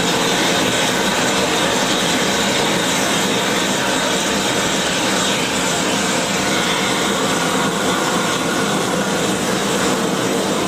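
Propane escaping under pressure from a wide-open spit valve and burning as a large open flame. The result is a loud, steady rushing hiss of gas and fire.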